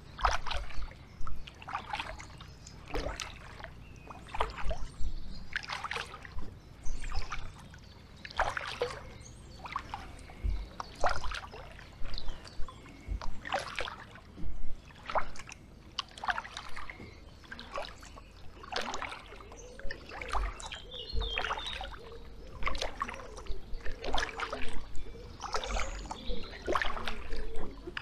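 Kayak paddle strokes: the blades dipping into and pulling through the river water, splashing and dripping roughly once a second, with low thuds under some strokes.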